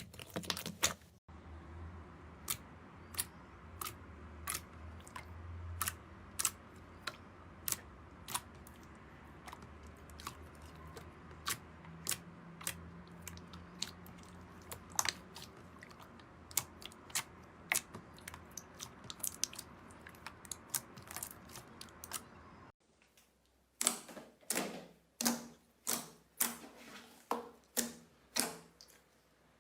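Slime being squeezed and worked by hand, giving sharp wet popping clicks at irregular intervals, about one or two a second. A louder, quicker run of pops comes in the last few seconds.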